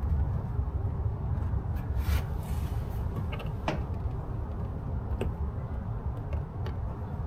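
Handling noise of a part being unpacked: a few short scrapes and light knocks over a steady low rumble.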